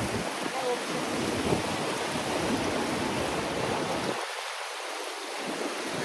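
River water rushing steadily around a rafting boat, with faint voices in the background.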